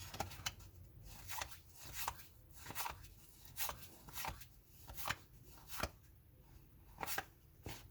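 Trading cards handled one by one: a series of short soft clicks and slaps, about one every half second to a second, as each card is slid off the stack and set down.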